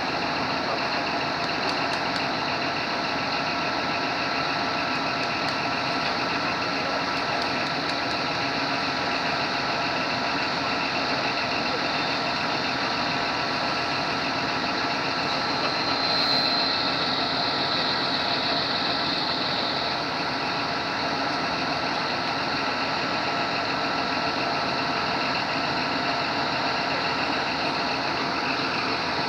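A vehicle engine idling steadily, with a brief higher-pitched whine about sixteen seconds in.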